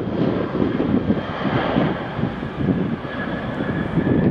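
Twin jet engines of a Boeing 737 freighter at takeoff thrust on its takeoff roll: a steady, rumbling jet noise with a thin high whine above it.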